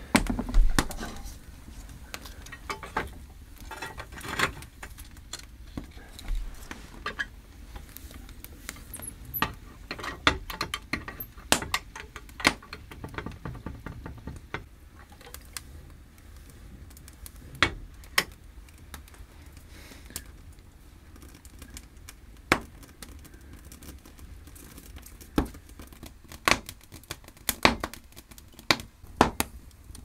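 Wood fire crackling in a plastered masonry stove, with sharp, irregular snaps throughout, and metal clinks as the small cast-iron firebox door is handled.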